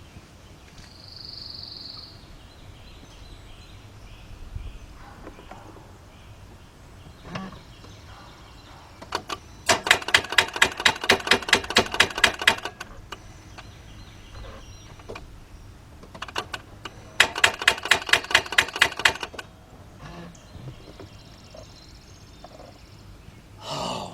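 Rapid clicking from the 2004 Mercedes-Benz C320's starter circuit in two bursts of about three seconds each, about five clicks a second, as the key is turned: the engine does not crank.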